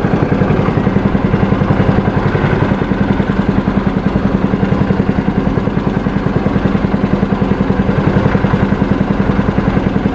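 A small boat engine pushing a wooden longboat along at trolling speed, running steadily with a fast, even beat.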